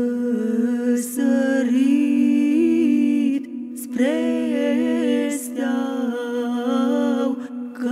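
Voices singing a Romanian Christmas star carol (cântec de stea) unaccompanied, a melody moving over a low held note. The singing breaks off briefly about halfway through and again near the end.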